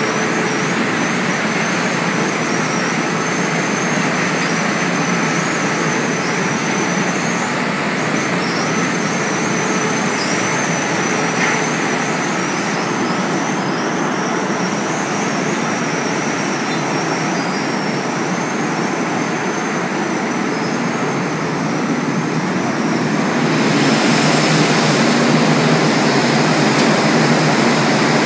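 Steady loud noise of coal-handling conveyor machinery running in a power plant's bunker bay, with a thin wavering high whine over it through the first half. Late on the noise grows louder and brighter.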